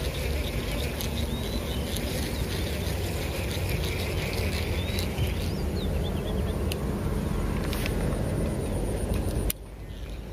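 A steady rumbling noise with a few birds chirping and some light clicks. The rumble drops off suddenly about nine and a half seconds in.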